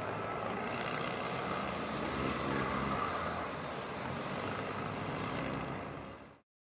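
Steady noise of distant road traffic, city background noise, which cuts off abruptly near the end.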